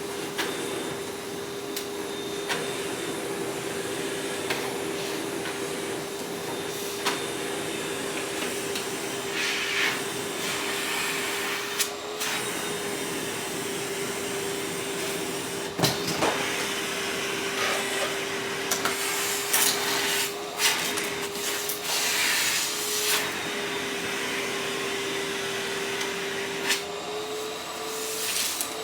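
Vacuum cleaner running with a steady motor hum whose pitch shifts slightly as the load changes. Scattered clicks and short rattles come through, thickest in the second half, as debris is sucked up and the nozzle knocks against the surface.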